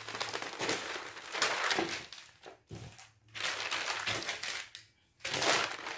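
Stiff brown pattern paper rustling and crackling as it is unfolded and handled on a table, in several bursts with two brief pauses.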